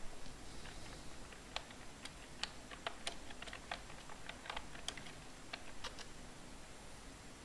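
Typing on a computer keyboard: a run of irregular key clicks that stops about six seconds in.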